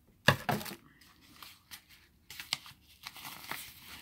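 A small package being torn open by hand: two sharp rips just after the start, then scattered crinkling and rustling of the wrapping with one sharp crackle midway.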